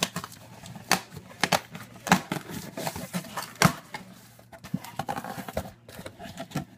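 Cardboard shipping box being cut open with small children's scissors, then its flaps pulled apart: irregular snips, scrapes and sharp cardboard knocks.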